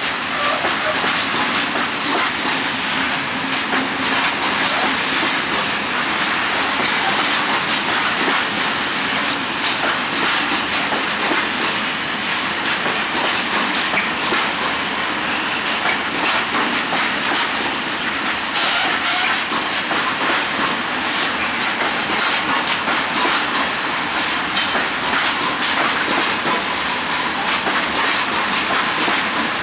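Train hauled by a TEM2 diesel shunting locomotive rolling past, its wheels clicking over the rail joints. The rolling noise is loud and steady, with many short clicks and no break.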